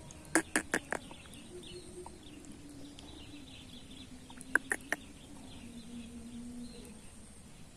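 Short, sharp clucks in two quick runs, four about half a second in and three about halfway through, over faint bird calls and a low steady hum.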